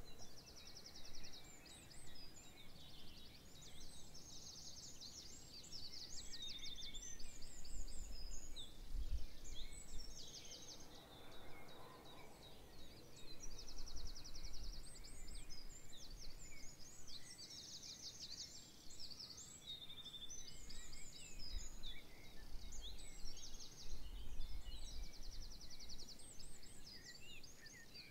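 A chorus of songbirds singing, full of rapid high trills and chirps overlapping one another, with a low rumble coming and going underneath.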